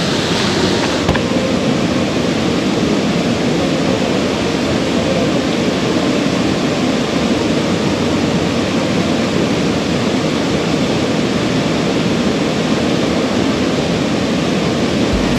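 Stream water rushing steadily, an even noise that does not change.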